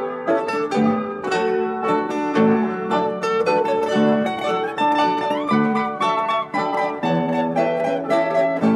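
Background music: a quick melody of plucked string notes over a lower plucked line.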